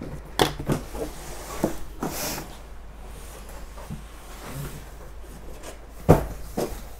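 Boxes and packed merchandise being handled: scattered light knocks and rubbing, a short scrape about two seconds in, and a sharper knock about six seconds in, followed by a lighter one.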